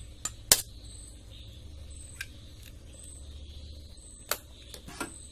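An egg cracked against the rim of a glass mixing bowl: a few sharp knocks, the loudest about half a second in, with more clicks a little after four seconds and near the end as the shell is handled.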